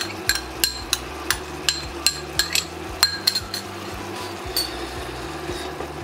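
Metal spoon clinking against a cooking pan while stirring, in quick sharp strikes about three a second that stop after about three and a half seconds, with one more clink a second later.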